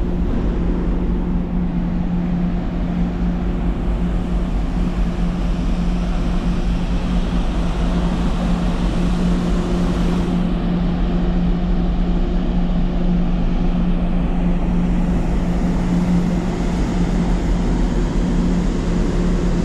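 Steady drone of a large car ferry under way: a constant low hum from its engines and funnel, with the rush of wind and water around the deck.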